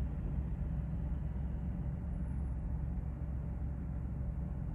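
Steady low rumble of distant vehicle engines, with no distinct events.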